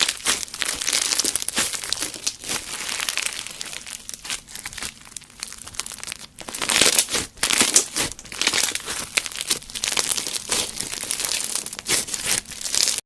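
Slime being squished and stretched by hand: a dense, continuous run of small wet crackles and pops, busiest about six to eight seconds in.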